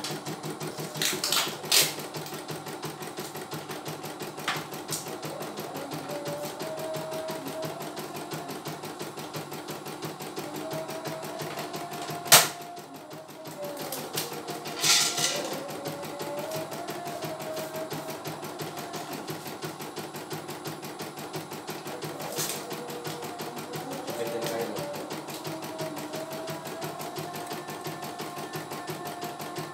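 CNY E900 computerized embroidery machine stitching out a design, its needle running in a rapid, even rhythm under a wavering whine. A few sharp clicks sound over it, the loudest about twelve seconds in.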